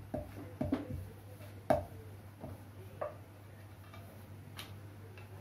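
Wooden rolling pin knocking and clacking against a metal plate as dough is rolled out into a roti: a few irregular sharp knocks, the loudest about one and a half seconds in.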